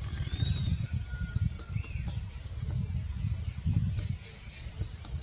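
A steady high-pitched insect drone, like cicadas or crickets, with a few short bird chirps, over a louder, uneven low rumble.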